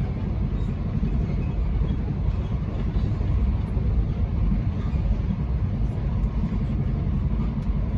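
Passenger train running at speed, heard from inside the carriage: a steady low rumble of wheels on rails and running gear, with a fainter even hiss above it.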